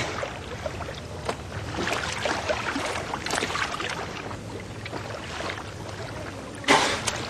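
Sea water sloshing and splashing in a narrow rock crevice as a man dives under, with many small slaps of water and a louder splash near the end.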